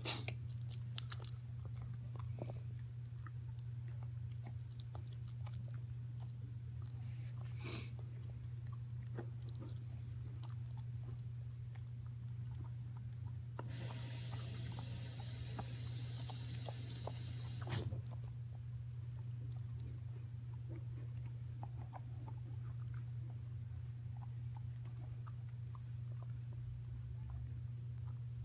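A puppy chewing and licking, with small wet clicks and crunches scattered throughout over a steady low hum. About halfway through there are a few seconds of rustling hiss that end in a sharp click.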